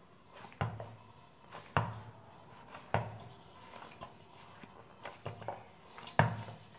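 Hands kneading a stiff ball of wheat baati dough in a stainless steel bowl: a series of thumps about a second apart as the dough is pressed and pushed against the bowl.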